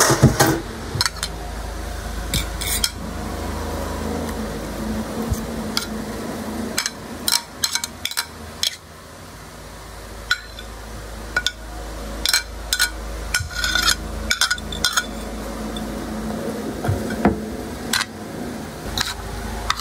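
Scattered clinks and taps of a utensil on a ceramic plate as sliced onion and tomato are added onto blanched seaweed, over a steady low hum.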